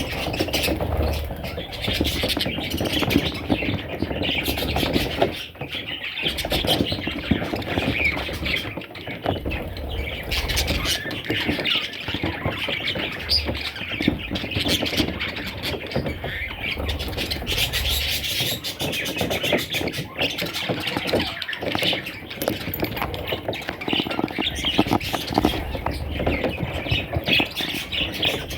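Several budgerigars chattering and squawking without pause: a dense, overlapping mix of chirps and warbles with many short clicks.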